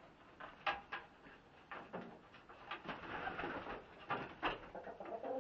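Barred Rock hens making soft calls, mixed with scattered sharp taps and a patch of rustling; a short pitched cluck comes near the end.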